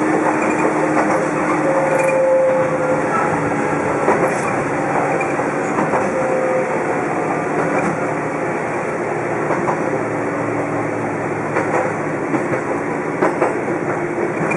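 Toyama Chiho Railway 14760-series electric train running along the line, heard from inside the car. Its wheels and running gear make a steady running noise with a low hum, broken by a few sharp clicks.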